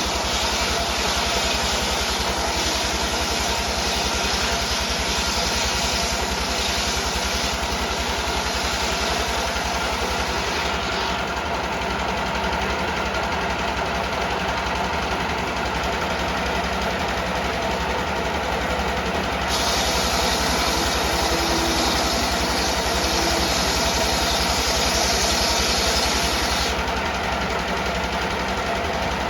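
Stationary diesel engine of a circular sawmill running steadily with a fast, even knocking rhythm. From about two-thirds of the way in, a brighter hiss rises over it for about seven seconds, then drops back.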